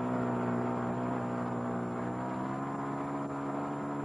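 Snowmobile's two-stroke engine running steadily as the machine drives away, its pitch sagging slightly midway and climbing again near the end.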